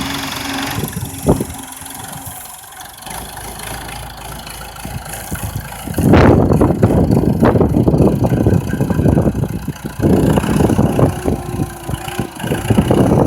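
Massey Ferguson 178 tractor's diesel engine running, becoming much louder about six seconds in and staying loud with a rapid pulsing rumble.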